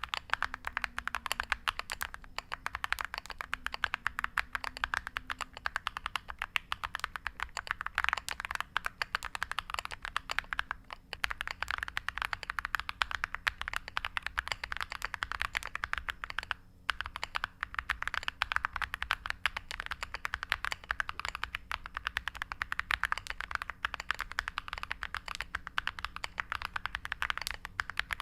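Fast, continuous typing on a Monka Alice67 Pro mechanical keyboard with Akko V3 Creamy Purple Pro tactile switches and dye-sub PBT MOG-profile keycaps: a dense run of key clacks, broken by two brief pauses.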